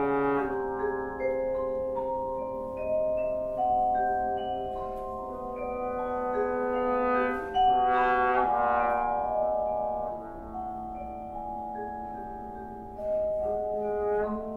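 Trombone and marimba playing a chamber duet: the trombone holds long notes while yarn mallets strike the marimba's bars, with a louder, busier passage about halfway through.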